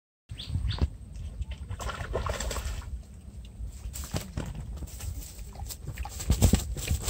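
A freshly landed rohu flopping on dry grass, giving irregular rustles and thumps, loudest about six and a half seconds in, over a low rumble of wind on the microphone.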